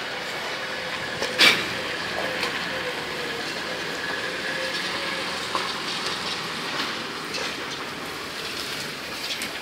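Stone-cutting machine running steadily with a faint wavering whine, and one sharp knock about a second and a half in.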